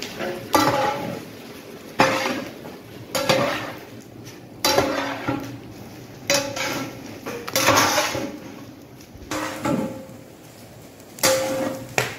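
A long-handled metal ladle scraping and knocking against a large metal cooking vessel as a big batch of vegetables is stirred. There is a stroke about every second and a half, and several of them leave a short ring from the pot.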